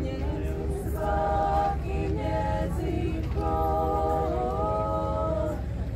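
Women's a cappella vocal group singing in close harmony, holding long sustained chords with brief breaks between phrases.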